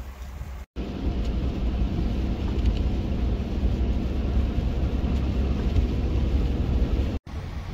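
Steady road noise of a vehicle driving on a snow-covered highway: a low rumble with tyre hiss. It starts suddenly about a second in and cuts off near the end, with quieter outdoor ambience before it.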